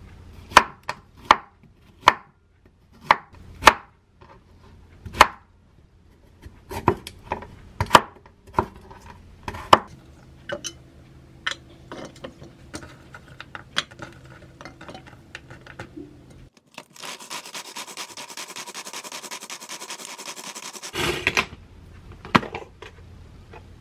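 Kitchen knife chopping vegetables on a wooden cutting board: a string of sharp, separate knocks. About 17 seconds in, a small manual food chopper gives a fast rattling whir for about four seconds as it minces the vegetables, followed by a few more knocks.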